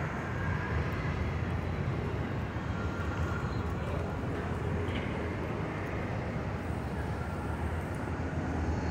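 Steady city street background noise with a low traffic rumble.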